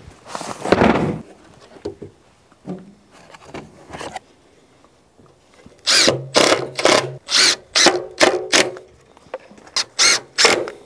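Cordless impact driver driving screws into pine 1x3 boards in a quick run of short bursts, about three a second, starting about six seconds in. A brief loud handling noise comes near the start.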